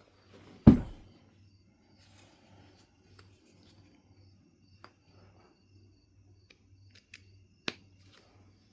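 Knife River flint being knapped: one sharp crack a little under a second in as the tool strikes the stone, then a few faint ticks and a sharper click near the end.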